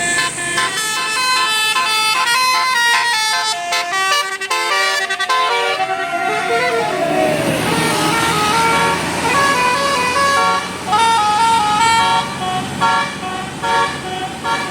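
Bus 'telolet basuri' musical horn playing a tune: quick runs of held notes stepping up and down in pitch, with a sliding note that rises and falls about midway.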